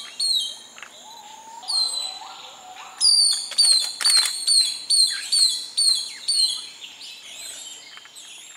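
Long-tailed broadbill calling: a series of about eight loud, high, downslurred whistles, about three a second, starting about three seconds in, with a couple of similar notes at the very start.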